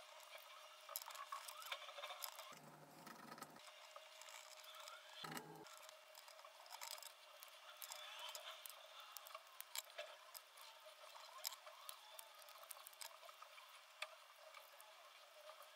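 Faint clicks, taps and scratches of thin wooden ice-cream sticks being handled and trimmed with scissors and a craft knife, with a few sharper clicks scattered through.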